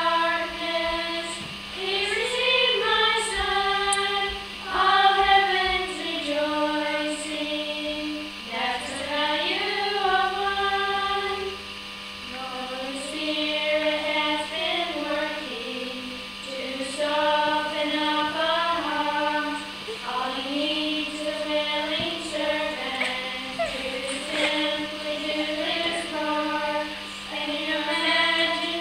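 Small group of children's voices and a young woman's voice singing a song together, unaccompanied, in sustained phrases with short pauses for breath between them.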